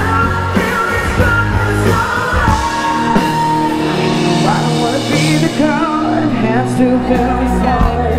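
Loud live rock music with a lead singer, played through a PA system in a festival tent and heard from inside the crowd.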